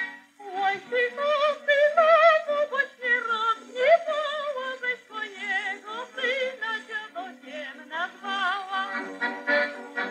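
A high voice singing with wide, quavering vibrato and swooping slides in pitch over a small band's accompaniment, on an old 1938 recording with the top end cut off.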